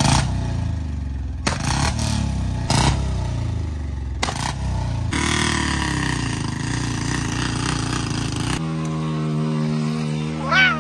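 Single-cylinder motorcycle engines revving hard, with several sharp clattering knocks in the first few seconds and a rising-and-falling rev from about five seconds in. About two seconds before the end the sound cuts abruptly to a steady droning tone, with a couple of quick up-and-down whistles over it.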